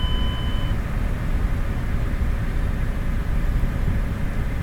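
Car engine idling steadily with a low rumble, just after being cranked and started on a 600-watt Kinetic car audio battery alone. A steady electronic beep is sounding at the start and cuts off under a second in.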